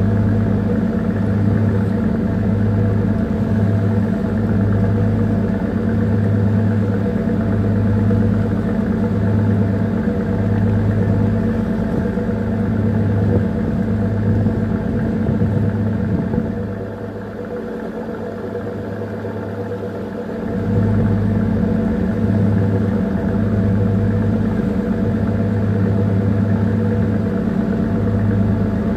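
A small tanker's diesel engine running under way: a steady low drone with a throbbing hum. It dips in level for a few seconds a little past the middle, then comes back.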